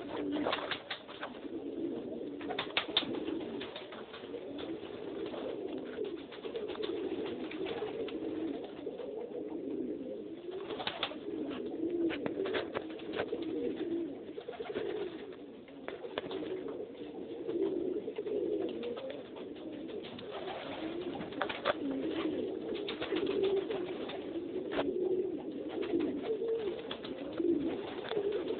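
Domestic pigeons cooing, several birds overlapping in a continuous low warbling, with scattered short sharp clicks.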